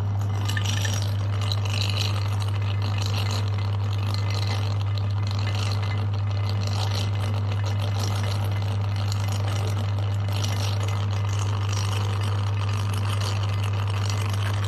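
Electric meat grinder motor running with a steady low hum, with irregular crackling and crunching from the food being ground.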